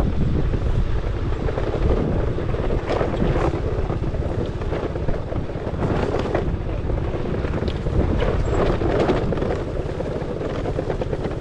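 Wind rumbling on the microphone during an off-road scooter ride, with a few sharp knocks and rattles from bumps in the rough ground.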